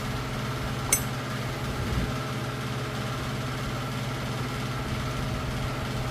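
Steady low machine hum with even overtones, unchanging throughout, with one sharp click about a second in.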